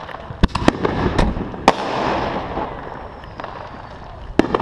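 Consumer fireworks going off: about four sharp bangs in the first two seconds, then another one near the end.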